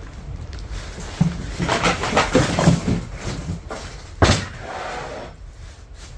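Clattering and knocking of hard objects being handled, with one sharp knock about four seconds in.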